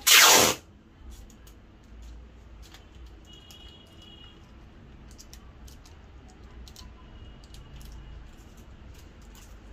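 A short, loud rasping noise about half a second long at the very start, then faint scattered clicks and taps of handling over a low hum.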